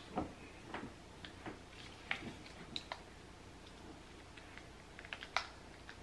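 Faint, irregular light clicks and taps from handling a small-barrel curling iron as it is twisted and tapped down through a section of hair, the sharpest click about five and a half seconds in.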